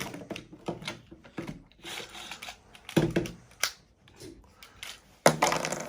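Plastic clicks and knocks of a Beyblade launcher being handled while its left/right spin switch is pushed and changed, with a few sharper knocks about three seconds in and near the end.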